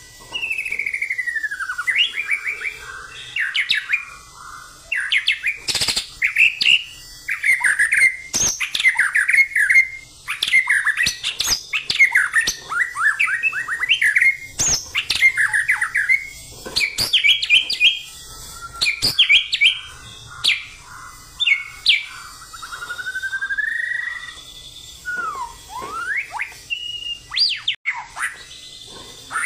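White-rumped shama (murai batu) singing a long, varied song of whistled glides, rapid note runs and sharp, clipped notes, phrase after phrase with only short pauses. It is the insistent, energetic 'ngotot' fighting-style song of a bird in full voice.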